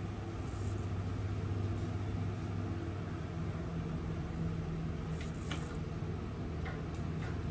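Steady low mechanical hum, with a few faint clicks in the second half.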